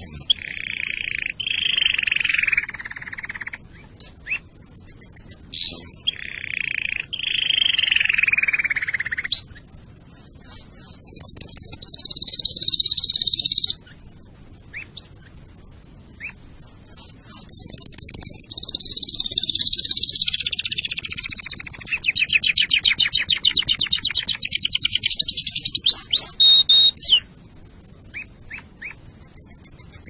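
Domestic canary singing: phrases of fast repeated notes and rolling trills with short rising whistles, broken by brief pauses, including one long rapid trill in the second half.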